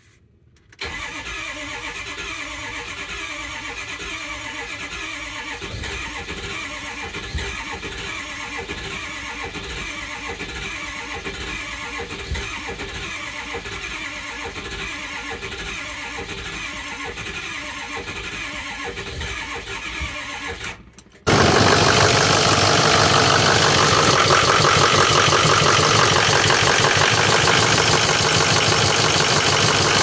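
Ford 6.0L Power Stroke V8 turbo-diesel being cranked over by the starter for about twenty seconds, a steady rhythmic churn, while it tries to build injection control pressure after a faulty injection pressure regulator was replaced. About two-thirds of the way through, the sound cuts to the engine started and running, steady and much louder.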